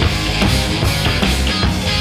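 Live rock band playing loud: a drum kit keeping a steady, driving beat with cymbals under electric guitar.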